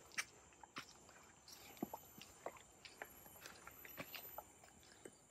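Footsteps crunching on a dirt path strewn with dry leaves, an irregular faint crackle several times a second. Under it runs a steady high-pitched buzz of insects.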